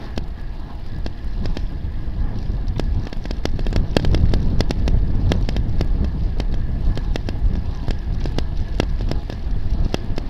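Wind rushing over the microphone of a camera mounted on a moving road bicycle, with a low road rumble and frequent sharp, irregular clicks. It gets louder about four seconds in.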